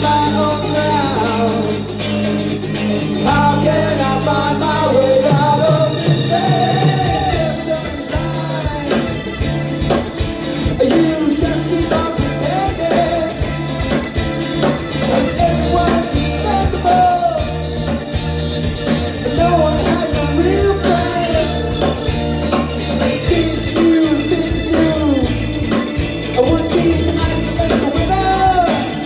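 Live rock band playing: long held keyboard and bass notes under a bending melody line, with the drum kit coming in about seven seconds in and keeping a steady beat with cymbals for the rest.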